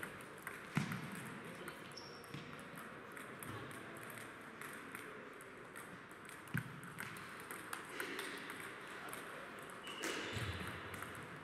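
Table tennis balls clicking irregularly against paddles and tables from several games at once, with a few louder knocks about a second in and about six and a half seconds in, echoing in a large sports hall.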